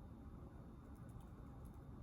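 Quiet room tone: a low steady hum with a few faint, light clicks about a second in and again near the end.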